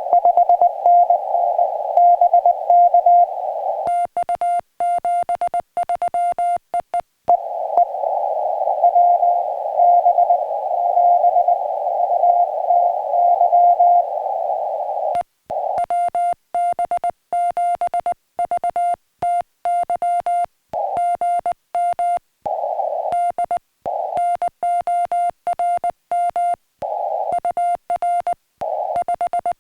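Morse code (CW) from a portable ham radio: a single steady tone keyed on and off in dots and dashes. Some stretches sit in a hiss of receiver noise, the sound of a station being received; others are a clean keyed tone with silence between the elements, like the radio's sidetone while sending.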